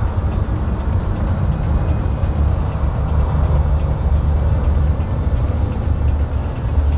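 A steady low rumble with a faint hiss above it, like running machinery in the background, with no clicks or knocks.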